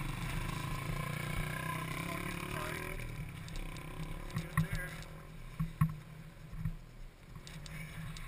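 A quad-bike engine idling with a steady low rumble, while a few sharp knocks sound about halfway through as hands work on the stalled ATV's wiring.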